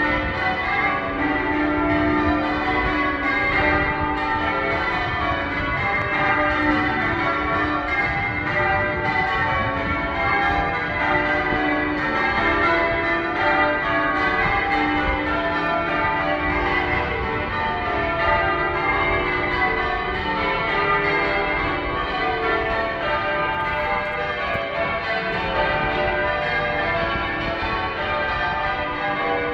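Manchester Cathedral's church bells in full-circle change ringing: many bells strike in quick, continuous succession, their tones overlapping at a steady level.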